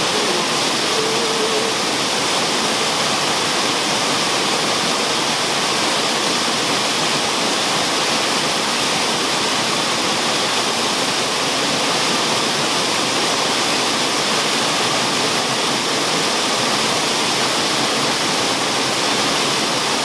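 Waterfall plunging down a basalt cliff into a pool: a steady, even rush of falling water.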